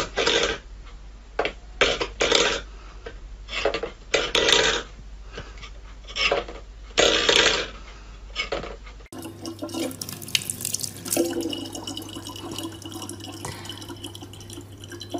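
A stainless-steel bowl pushed about by a cat's paw on a wooden floor, the metal scraping and clattering in short, irregular bursts. About nine seconds in this gives way to a tap running a thin, steady stream of water into a plastic bottle.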